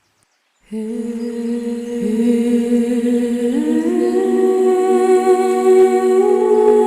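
Wordless meditative a cappella vocals: after a brief silence, sustained humming tones come in one after another and build into a held chord, growing louder.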